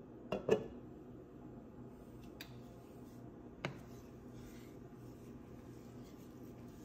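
Wooden spatula stirring and scraping through simmering jaggery syrup in a non-stick pan, with a few light knocks, the loudest two near the start. A low steady hum runs underneath.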